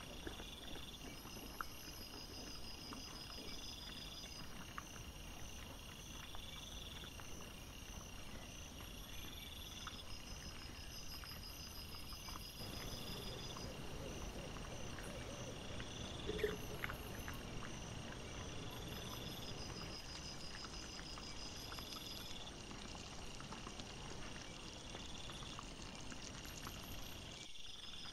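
Night insects chirping in regular, evenly repeating high pulses, with faint scattered clicks and rustles from wild boar foraging at the bait. There is one brief louder sound about halfway through.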